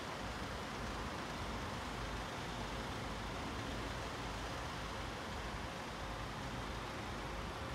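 Steady low rumble and hiss of distant vehicles, with a faint steady hum through the middle.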